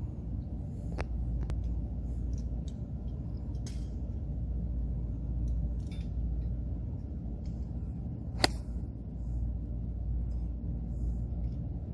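A 7-iron striking a golf ball off a range mat: one sharp crack about two-thirds of the way through, over a steady low rumble.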